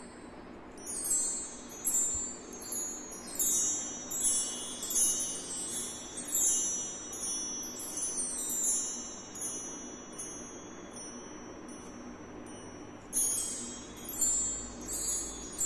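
Row of hanging golden metal bar chimes ringing in repeated cascades of high, shimmering tones. There is a quieter stretch of about two seconds near the end before the chimes are set ringing again.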